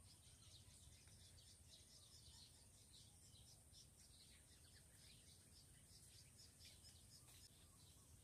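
Near silence: faint outdoor ambience of rapid, small chirping calls, with a steady high-pitched whine beneath them.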